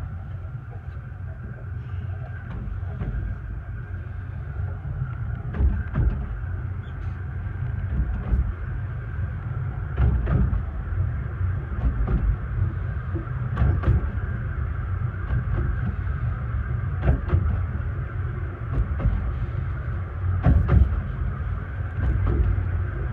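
A 15-inch gauge railway carriage running along the track: a steady low rumble with irregular knocks and clatter.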